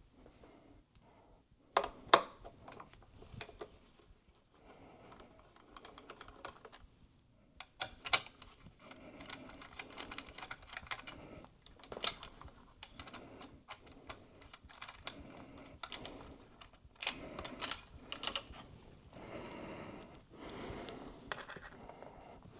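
Irregular small clicks and taps with light rustling from hand work on the internals of an opened iMac, as the hard drive is freed for removal. It is quiet for the first couple of seconds, with the sharpest clicks about two and eight seconds in and a denser run near the end.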